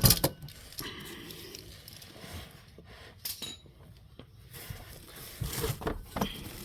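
Metal tools clinking and knocking: an oil filter wrench and ratchet handled around a loosened oil filter, with a loud clatter right at the start and scattered lighter clicks after.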